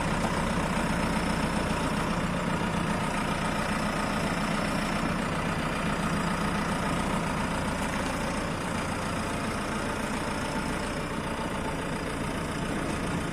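A 2017 JCB 4CX backhoe loader's diesel engine running steadily at a low, even speed, like idle.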